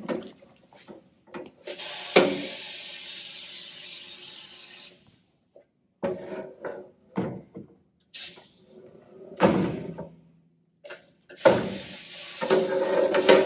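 Wheel lift on a John Bean B2000 wheel balancer hissing steadily as it moves, twice: for about three seconds near the start and again over the last two seconds as the wheel is raised to the arbor. In between come separate knocks and clunks of the tyre being handled on the lift.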